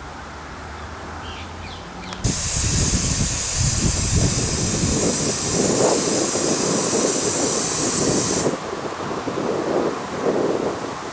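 Steady rushing noise, like wind and tyres on a moving car. A loud hiss starts suddenly about two seconds in and cuts off about six seconds later, leaving the lower rush.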